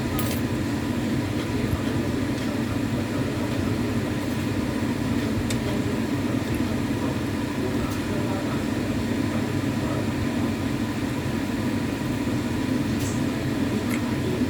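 Steady low rumbling hum of background machinery or traffic, unchanging throughout, with a few faint clicks now and then.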